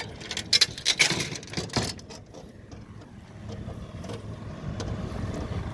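Metal toolbox door chains jingling and clinking for about two seconds as they are handled, then a low steady hum underneath.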